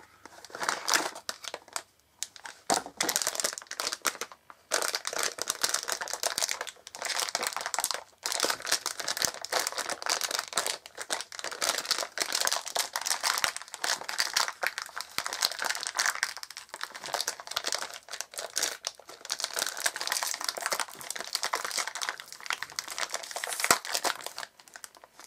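Silver foil wrapper crinkling and crackling as it is unwrapped by hand, with a few short pauses.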